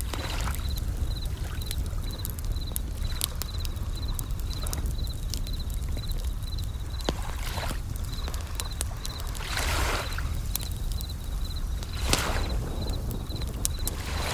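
Layered nature ambience: a bell cricket (suzumushi) chirping in a steady, evenly repeating rhythm over a crackling campfire with sharp pops, while waves wash in every few seconds.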